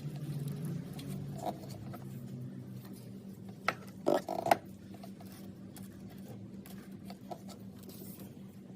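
A low steady hum with a few light clicks and knocks, the loudest a quick cluster about four seconds in.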